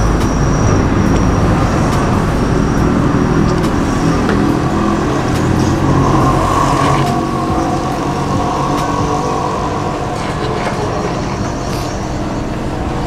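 Road traffic running past, a steady rumble with a vehicle growing louder around the middle, with a few light clinks of a knife and fork on a plate.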